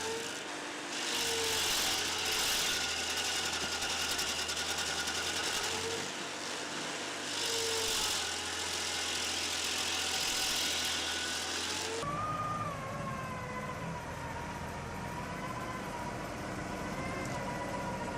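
Stump grinder running: a steady engine with the noise of the cutter grinding wood. The sound changes abruptly about twelve seconds in, to a different steady machine noise with a faint whine.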